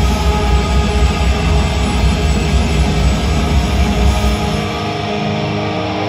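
Live post-metal band playing loud, with distorted guitars, bass and drums in a dense wall of sound. A little over four seconds in, the drums and bass drop out, leaving guitar chords ringing on.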